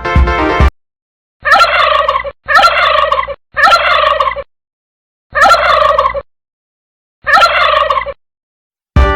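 A bird calling five times, each call lasting about a second and made of a rapid, rattling run of notes, with short silences between. Music plays briefly at the start and again near the end.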